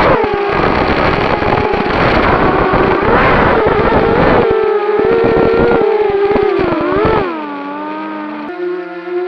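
3D-printed quadcopter's electric motors and propellers whining. The pitch falls steeply at the start, wavers, then dips again about seven seconds in and holds lower and steadier. A rough rushing noise underneath stops at the same point.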